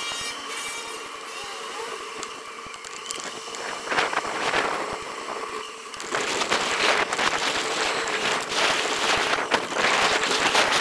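A bicycle in motion as picked up by a handlebar-mounted action camera: tyre noise on the road with rattling and sharp knocks over bumps. It gets louder and busier from about six seconds in, as the bike crosses onto block paving.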